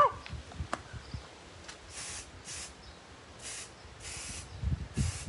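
Aerosol spray-paint can spraying a bicycle in five short hisses, each under half a second, spaced over a few seconds.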